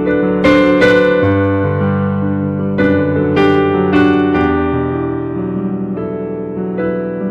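Piano playing slow sustained chords, new notes struck about every half second to second and left to ring and fade.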